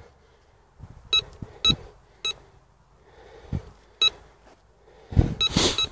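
Bounty Hunter Land Star metal detector giving short beeps, about five spread unevenly over a few seconds, as its coil sweeps over a medal buried 45 cm deep: the target signal. A louder scuffing rustle comes near the end.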